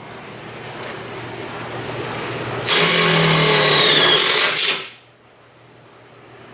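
Cordless drill driving a self-tapping screw into the steel frame: the motor runs hard for about two seconds, its whine falling in pitch as the screw bites, then cuts off suddenly.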